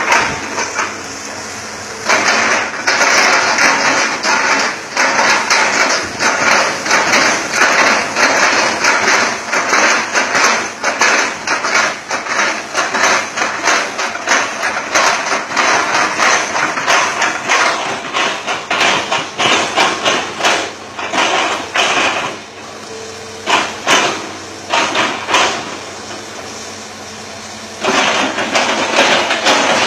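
Hitachi Zaxis 200-5G excavator's bucket chopping an oil palm trunk: a fast, continuous run of heavy knocks over the steady noise of the diesel engine. The knocking stops about 22 seconds in, comes back briefly, then resumes near the end.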